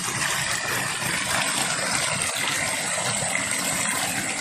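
Steady rush of a shallow, rocky stream, with the water stirred by hands reaching in and groping along the bottom.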